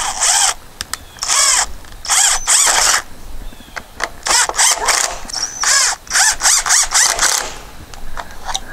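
Cordless DeWalt drill driving screws through the back of a plastic electrical box into a wooden post, run in many short trigger bursts, its motor whine rising and falling in pitch with each squeeze.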